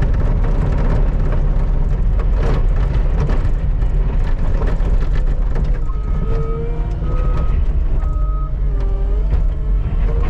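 Skid steer engine running steadily under load, heard from the cab, with the backup alarm beeping three times about six seconds in as the machine reverses.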